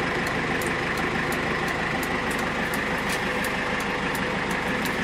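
A 2013 GAZ Gazelle's 2.8-litre turbocharged inline-four diesel idling steadily, heard from inside the cab. Over it the hazard-light flasher ticks faintly, about three times a second.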